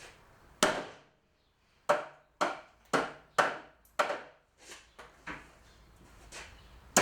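A golf club hitting a plastic box fan again and again: six hard blows in about three and a half seconds, each with a short rattling tail, then a few lighter knocks near the end.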